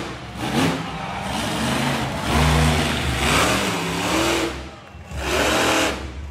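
Monster truck engine revving hard in several bursts of throttle, its pitch climbing and dropping each time.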